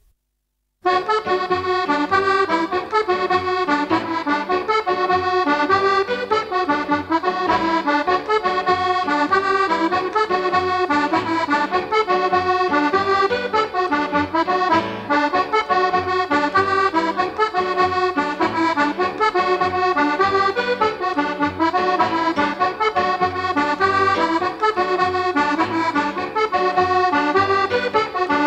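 Background music: a traditional Irish slip jig played on accordion, starting about a second in.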